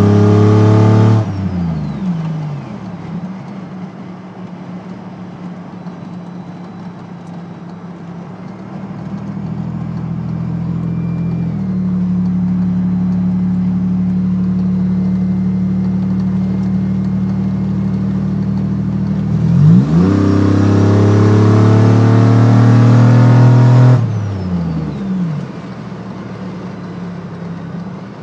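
Turbocharged engine of a heavy SUV heard from inside the cab, pulling loudly under hard acceleration, then easing off about a second in with its pitch falling away. It builds again slowly to a steady drone, then about twenty seconds in surges with a quick rise in pitch and pulls loudly for about four seconds before the throttle is lifted and it drops away.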